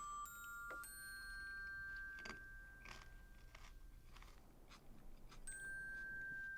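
Soft background music of held glockenspiel-like chime notes, with a few faint crunches of raw carrot and celery being chewed through the middle.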